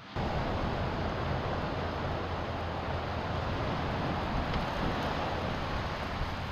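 Portable gas stove burner running under a frying pan of toasting burger buns, giving a steady rushing hiss with a low hum underneath.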